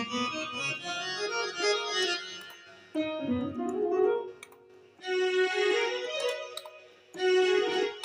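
Roland XP-60 synthesizer keyboard being played, with piano- and electric-piano-like chords in about four phrases separated by brief pauses.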